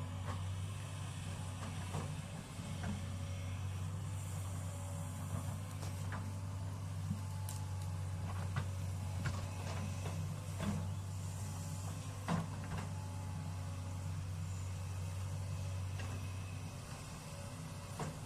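Sany excavator's diesel engine running at a steady low hum, with scattered sharp knocks and clicks as it works; the hum drops off a little near the end.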